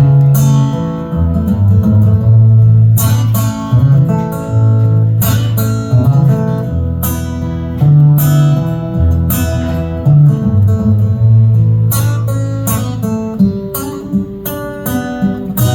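Acoustic guitar playing an instrumental break: strummed chords over a bass line that moves from note to note, with no singing.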